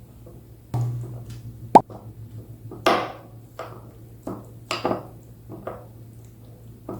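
A series of soft knocks and taps from kitchen items being handled, with one sharp clink about two seconds in, over a low steady hum.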